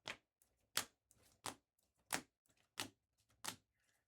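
Trading cards handled one at a time, each one giving a short, sharp snap or click as it is flipped or laid down. There are six evenly spaced snaps, about two-thirds of a second apart.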